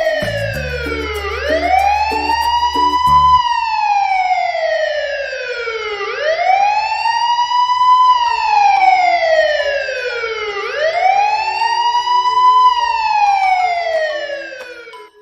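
Electronic wail siren rising and falling slowly, about three full cycles, with a low rhythmic thumping under it for the first few seconds. It stops abruptly at the end.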